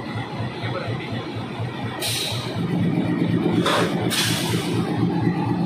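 Diesel locomotive's engine rumbling with a low, even pulse as it rolls slowly past close by, getting louder past the middle. Short bursts of hissing air break in at about two seconds and twice around four seconds.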